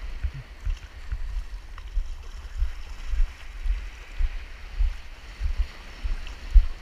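Wind buffeting a camera microphone in uneven low gusts, over the steady hiss of surf washing in the shallows.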